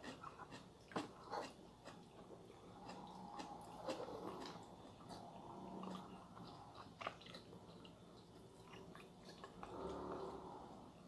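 Quiet close-up eating sounds: chewing, with scattered light clicks of chopsticks against a rice bowl and plate.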